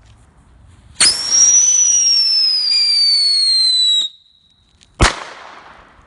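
Brothers Pyrotechnics 'Exploding Bin Laden Noggin' novelty firework going off. It gives a loud whistle for about three seconds that falls slowly in pitch. About a second after the whistle stops, a single sharp bang comes as the head blows apart.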